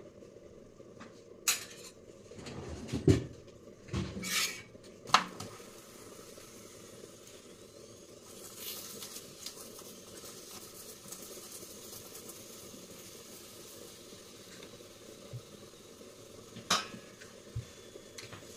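Kitchen utensils knocking and clinking against metal pans and a tawa. There are several sharp knocks in the first five seconds and one more near the end, over a faint steady hiss.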